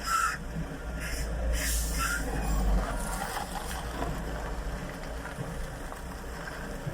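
Liebherr 910 wheel excavator's diesel engine running with a low rumble that swells about two to three seconds in, with a few brief hissing bursts in the first two seconds.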